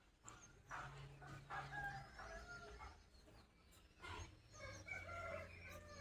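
Two faint, drawn-out animal calls, the first about a second in and the second from about four and a half seconds in, over a faint low hum.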